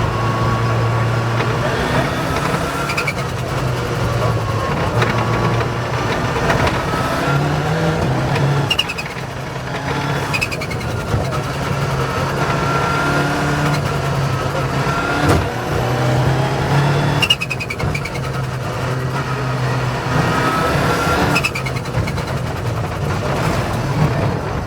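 Rally car engine driven hard along a stage, its revs rising and falling over and over as it changes gear.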